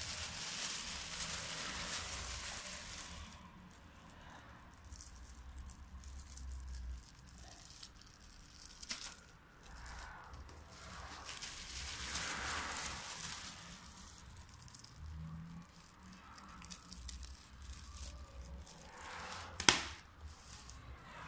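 Thin clear micro-perforated POF shrink film rustling and crinkling as it is handled and pulled, in uneven waves, with one sharp snap a little before the end.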